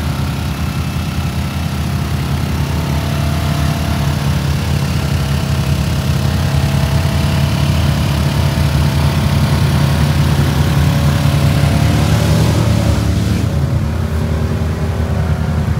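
Off-road side-by-side and ATV engines running steadily as the machines wade through deep mud and water. The sound changes abruptly about thirteen seconds in.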